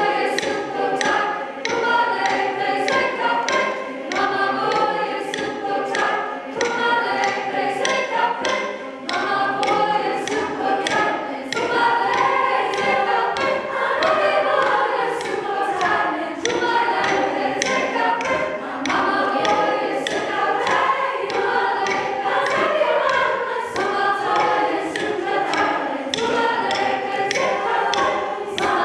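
Mixed youth choir singing a Haitian folk song a cappella in several parts. A steady beat of sharp percussive hits, about two or three a second, runs under the voices.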